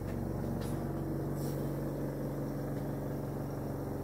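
Devilbiss oxygen concentrator's compressor running with a steady hum. A couple of faint, brief scuffs come about half a second and a second and a half in.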